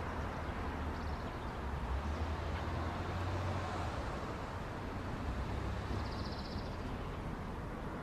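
Outdoor parking-lot ambience: a steady wash of noise with a low vehicle rumble that swells about two to four seconds in, and a brief high trill near the end.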